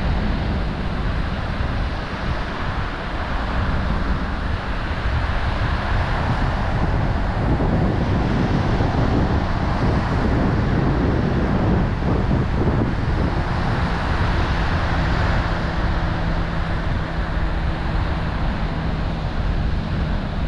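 Wind buffeting the microphone in a steady rumble over the wash of surf breaking on the beach.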